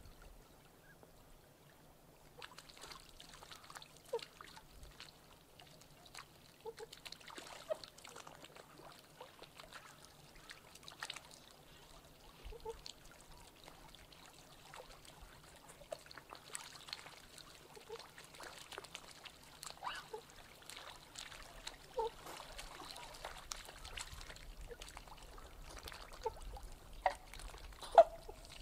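Gentle water lapping and trickling with many small splashes as whooper swans swim and dip their heads to feed in the shallows. A scattering of short, soft swan calls comes through, the loudest near the end.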